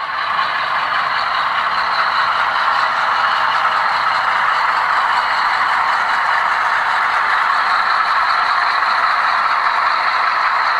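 HO-scale model diesel locomotives and coal train running across a bridge on a model railroad layout: a steady, loud mechanical running noise.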